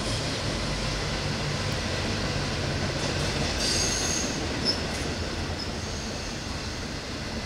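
Intermodal freight train cars carrying semi-trailers rolling past, with a steady rumble of wheels on the rails. Brief high wheel squeal comes in about four seconds in, and there is a single sharp click shortly after.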